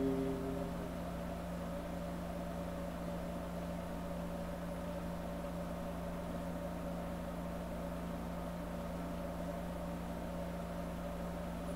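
Steady low drone with a fixed pitch that does not change. Two higher held tones fade out about half a second to a second in.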